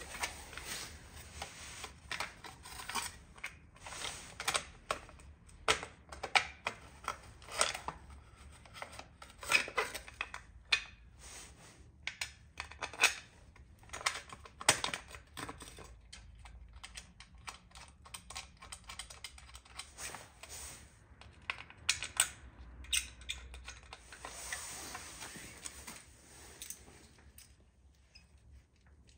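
Irregular small clicks and clatters of a carbon-fibre exhaust heat-shield cover and its fasteners being handled and fitted onto its mounting brackets on a motorcycle.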